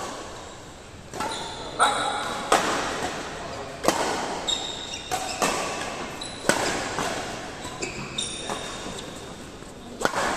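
Badminton rackets striking a shuttlecock in a fast rally: several sharp hits a second or two apart, with short high squeaks of shoes on the court mat in between, echoing in a large hall.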